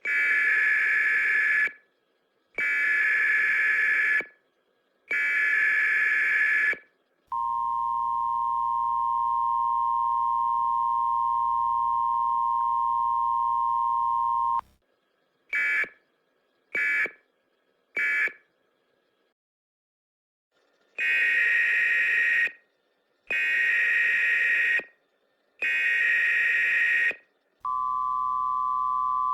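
American Emergency Alert System audio played slightly sped up. First come three loud data-burst headers, then the steady two-tone attention signal for about seven seconds, then three short end-of-message bursts. After about two seconds of silence the three header bursts repeat and the two-tone attention signal starts again, a little higher in pitch as playback moves from 1.1 to 1.2 times speed.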